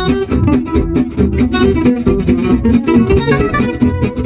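Background music: acoustic guitar playing quick plucked and strummed notes.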